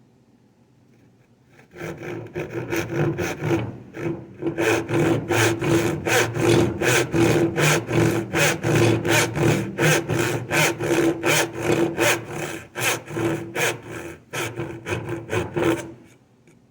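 Back saw cutting down into a wooden board for a finger joint, with quick, even back-and-forth strokes. The sawing starts about two seconds in and stops near the end.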